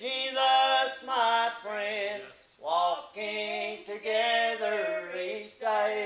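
Slow gospel song being sung, with long held notes with vibrato and short breaks between phrases, over a steady instrumental accompaniment.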